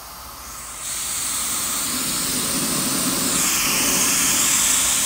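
Compressed natural gas hissing out of a car's CNG cylinder as it is vented to blow out the oil that has collected inside. A loud, steady hiss that swells in about a second in.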